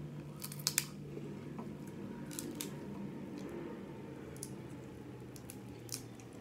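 Snow crab legs being cracked, picked apart and eaten by hand: a few sharp snaps and clicks, the loudest a pair about three-quarters of a second in, others at about two and a half and six seconds, over a steady low hum.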